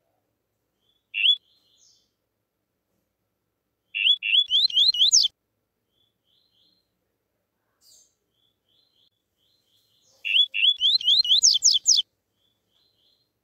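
Caged male double-collared seedeater (coleiro) singing the tuí-tuí song. A lone rising note comes about a second in, then two fast phrases of sharply rising whistled notes about four and ten seconds in, with faint soft chips between them.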